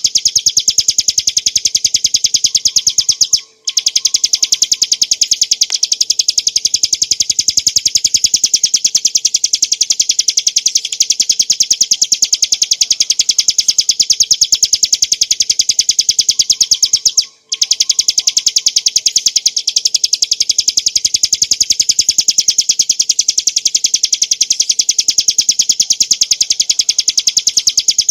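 Bar-winged prinia (ciblek gunung) singing a loud, rapid, unbroken stream of high chattering notes. It pauses briefly twice, about three and a half seconds in and about seventeen seconds in.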